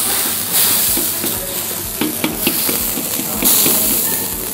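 Chicken pieces in boiling water in a large wok: a steady hiss of boiling and steam. A metal scoop knocks and scrapes against the wok several times as it is stirred, mostly from about two seconds in.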